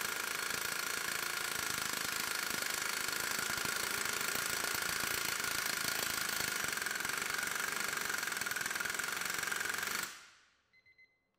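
Capri Twin Power CP35205 half-inch pneumatic impact wrench hammering continuously at full trigger against a torque tester, in reverse at higher line pressure. Its rapid blows and air hiss hold steady, then cut off suddenly about ten seconds in.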